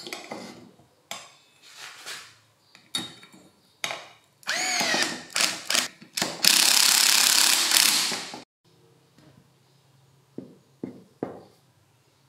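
A screwdriver drives a small screw through a stainless steel bracket into a plastic tool-handle housing. Clicks and scrapes of the parts being handled come first, then a few squeaks. The loudest part is a steady run of about two seconds, starting about six and a half seconds in. A few light knocks come near the end.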